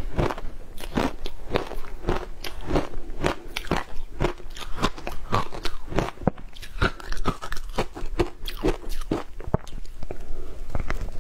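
Frozen matcha ice crunching as it is chewed and scooped with a spoon from a plastic tub: a steady run of crisp crunches, about two a second.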